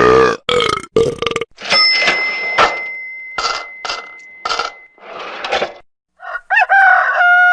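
A rapid string of short comedy meme sound effects cut one after another: a burp-like sound, a run of brief separate bursts, a steady high beep lasting about three seconds, and a long pitched call that begins near the end.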